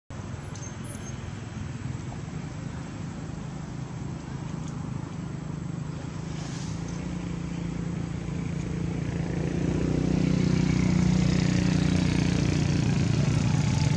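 A vehicle engine running steadily as a low rumble, getting louder about two-thirds of the way through.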